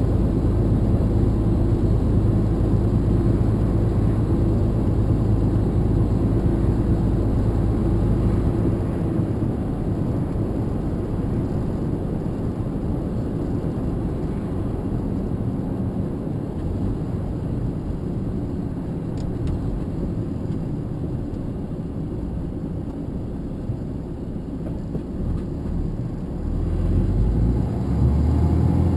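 Truck engine and road noise heard from inside the cab while driving, a steady low drone. The deepest part of the drone eases about eight seconds in and builds again near the end.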